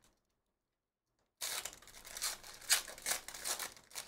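Foil wrapper of a Donruss Basketball hobby pack crinkling and tearing open in irregular crackling bursts, starting about a second and a half in.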